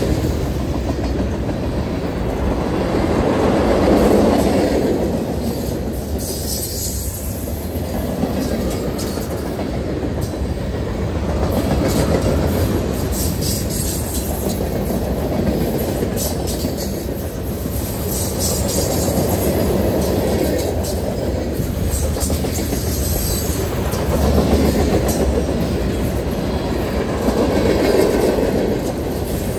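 Freight cars rolling past: a steady rumble of steel wheels on the rails, swelling and easing every few seconds as cars go by, with light clicking over the rail joints.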